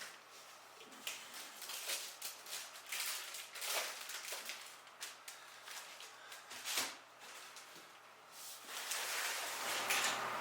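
Faint, scattered knocks and rustling from handling, with a louder knock about seven seconds in and a rising shuffling noise near the end.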